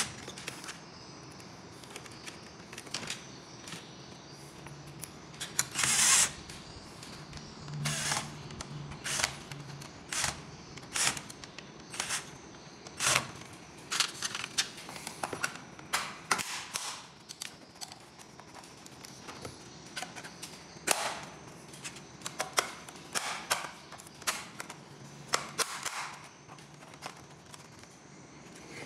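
Irregular sharp clicks and knocks of wall plug sockets being screwed to a panel and their parts fitted, with a cordless drill running briefly around six and eight seconds in.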